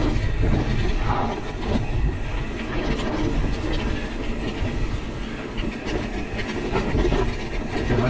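Wind buffeting the camera microphone over the continuous rattle and clatter of a Pivot Switchblade full-suspension mountain bike and its tyres rolling fast over a dry dirt trail on a descent.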